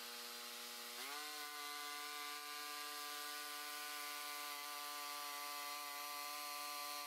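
Bandsaw mill running as its blade cuts into a hardwood burl log. The motor's pitch rises about a second in and then holds steady.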